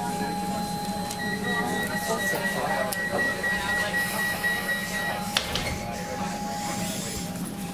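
EDI Comeng train's doors closing, heard from inside the carriage: a high warning tone sounds for about four seconds, then the doors shut with a sharp knock just after five seconds, followed by a short hiss. A steady electrical whine from the train runs underneath.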